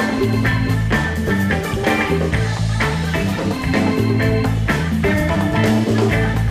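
Live band playing an instrumental passage with a steady beat: a moving bass line, drums, guitar and keyboard.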